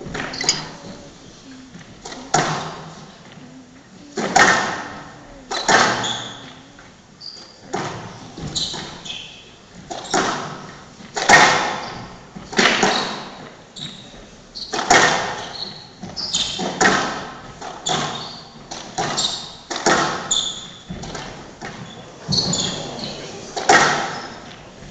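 Squash rally heard from the stands of a large hall: the ball is struck by rackets and smacks against the court walls about once a second. Each hit echoes through the hall.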